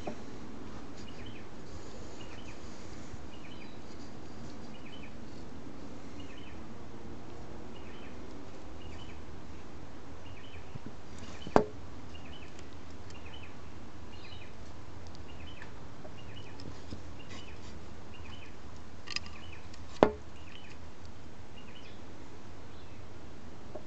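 Two sharp knocks from handling, one about halfway through and one near the end, over a steady outdoor background. A faint high chirp repeats roughly once a second throughout.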